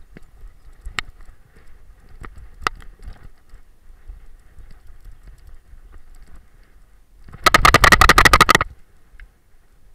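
Camera rattling in its harness mount on a running dog: a few light knocks, then a loud, rapid clatter lasting just over a second, about seven seconds in.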